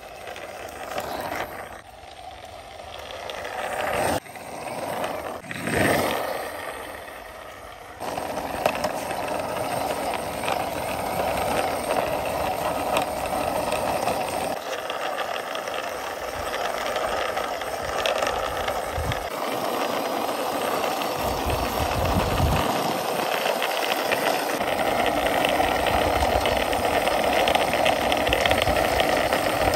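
Plastic wheels of a toy school bus rolling over a rough concrete wall top as it is pushed by hand. The sound stops briefly a couple of times in the first eight seconds, then runs on steadily.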